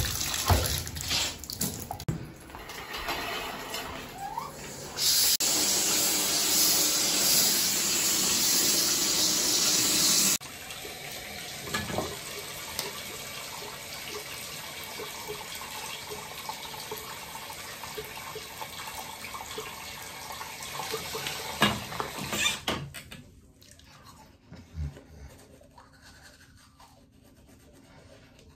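Water running from a bathtub faucet, a steady rushing gush that gets louder about five seconds in and drops abruptly to a quieter steady rush about ten seconds in, which stops about twenty-three seconds in. Near the end there is faint toothbrush scrubbing.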